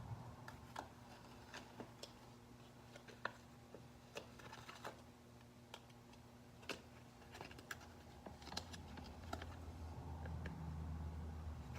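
Irregular light clicks and scrapes of a plastic pry card being worked under a Galaxy S7 screen along its aluminium frame, over a low steady hum that swells near the end.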